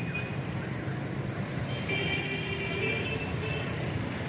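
Steady street traffic: motorbikes and other vehicles passing in a continuous rumble. For about a second, starting about two seconds in, a thin steady tone sounds over it.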